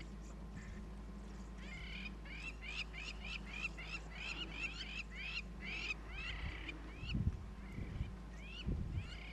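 A flock of small birds chirping: many quick, high, curved chirps in rapid overlapping runs. A steady low hum runs underneath, and a few low thuds come near the end.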